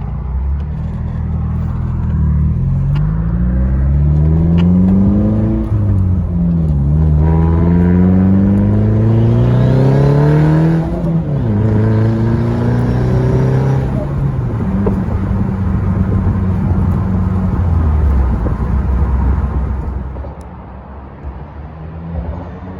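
Turbocharged 2006 Pontiac Solstice's four-cylinder engine accelerating hard through the gears. Its pitch rises twice, dropping at each gear change, with a turbo whistle rising over the second pull. It then runs steadily and eases off near the end.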